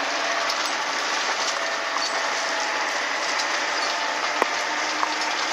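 Train running on the rails: a steady noise with scattered clicks and rattles.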